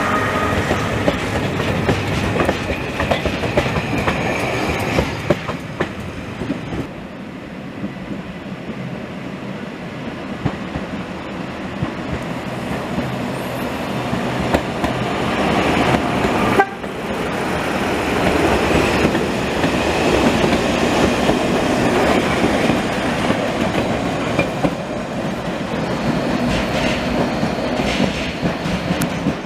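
Narrow-gauge passenger train running past close by: the wheels clatter over the rail joints and the carriages rattle, with an abrupt break about halfway through where one pass gives way to another.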